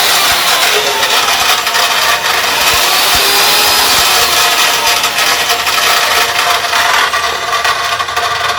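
An electric power tool running continuously and loudly, a rasping, grinding noise with a faint wavering whine; it dips briefly near the end.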